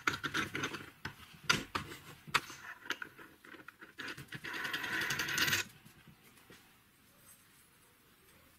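Metal handling on a steel bearing housing: a long threaded bolt is pushed and turned through its ball bearing, with clicks and scrapes, then a rapid rattling run of about a second and a half that stops about two-thirds of the way through.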